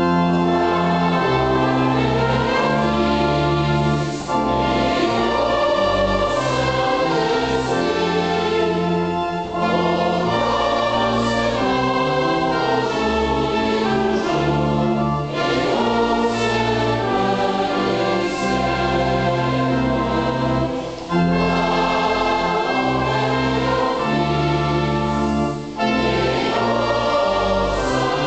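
Congregation and clergy singing a hymn together, accompanied by instruments with sustained low notes and a trumpet. The singing goes in phrases, each line broken by a short pause every five or six seconds.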